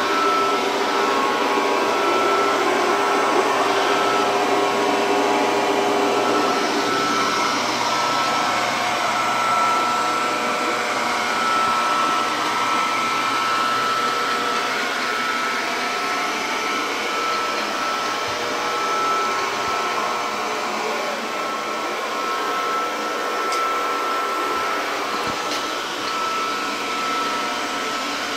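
Robot vacuum cleaner running, a steady motor hum with a steady whine.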